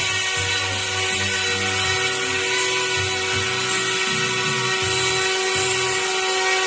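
YuXiang F06 RC helicopter's direct-drive brushless motors and rotors running in a hover. It makes a steady, high-pitched electric whine with a whirring hiss.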